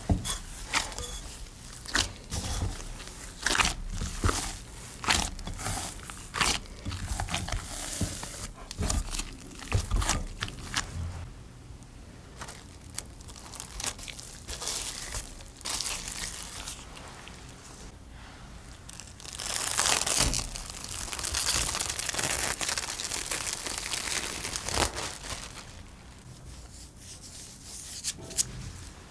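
Gloved hands kneading a soft potato-and-flour dough in a glass bowl: sticky squelching and crackling from the dough and gloves, with dull knocks, busiest in the first ten seconds. About two-thirds of the way in there is a longer stretch of even rustling hiss.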